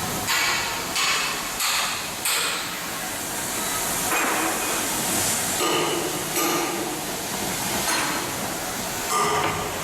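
Hammer blows on steel during shipyard outfitting work, struck about every two-thirds of a second at first, then with a stretch of hissing midway and a few ringing metallic strikes later.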